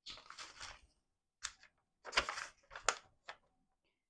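Handling of the KitchenAid shredder attachment's parts and packaging: a short rustle, then four sharp clicks and knocks over the next two seconds.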